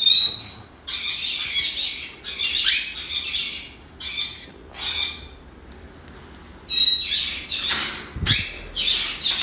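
A run of short, harsh, high-pitched animal squawks, about a dozen with brief gaps, and a low clank about eight seconds in.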